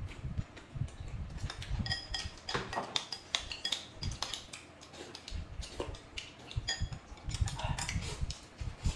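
Table-eating sounds: noodles being slurped and chewed, with a metal spoon clinking against a glass bowl a few times, each clink ringing briefly.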